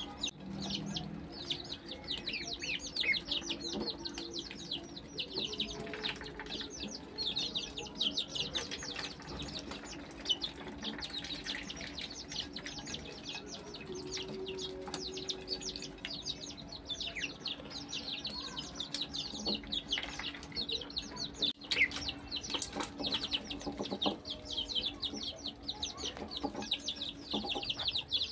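A brood of ducklings peeping constantly, many short falling peeps overlapping, while they crowd round to peck at food. A faint steady hum lies underneath.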